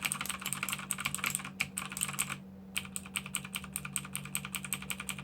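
Fast typing on a mechanical keyboard with Outemu Blue clicky switches and stock keycaps without O-rings: a dense run of sharp clicks, with a brief pause about two and a half seconds in.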